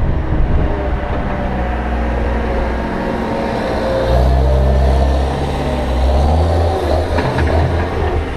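Cat 236B3 skid steer's diesel engine running, getting louder from about halfway through, with its pitch shifting a little near the end.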